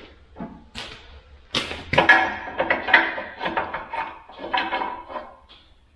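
Steel parts of a bale handler's fork-tine assembly knocking and clanking together as they are fitted by hand, with several sharp knocks and then a busy run of clanks that ring briefly, dying away about five seconds in.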